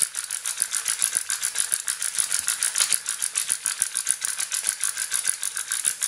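Hand pepper grinder being twisted, grinding black peppercorns with a fast, even run of clicks.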